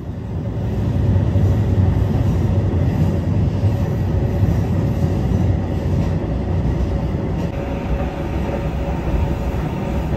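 Inside a Hisatsu Orange Railway train running at speed: a steady low rumble of wheels on rail with a faint steady hum over it, building up over the first second.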